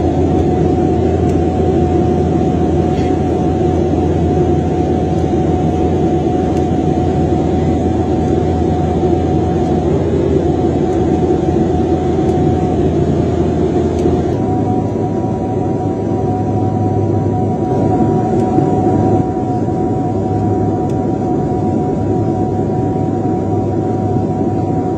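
Airliner cabin noise on approach with the main landing gear extended: a steady rush of engines and airflow with a steady low drone. About 14 seconds in the sound shifts slightly and a higher steady whine joins it.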